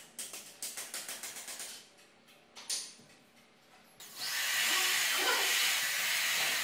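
Corded electric drill boring into wood: a steady high whir that starts suddenly about four seconds in. Before it comes a quick run of light knocks.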